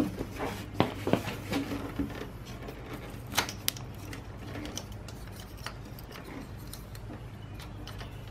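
Hands working a motorcycle's radiator cap loose under the pulled-back fuel tank: sharp small clicks and knocks, most of them in the first four seconds, then quieter rubbing. A steady low hum runs underneath.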